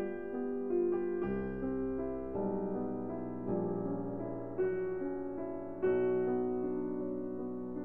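Background piano music: slow, gentle notes and chords, with a new bass note struck about every second.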